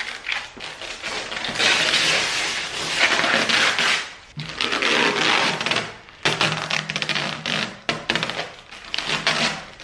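Clear plastic wrap being pulled and peeled off a battery case, crinkling and crackling in about four spells with short breaks between.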